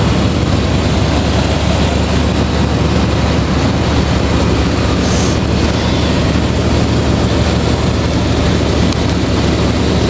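Lifted old Suburban's engine idling steadily, with a steady hiss over it.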